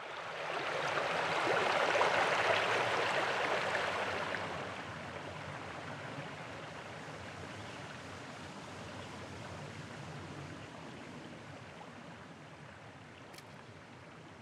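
A rushing noise that begins suddenly, swells over the first couple of seconds, then slowly fades to a softer steady hiss. A faint click comes near the end.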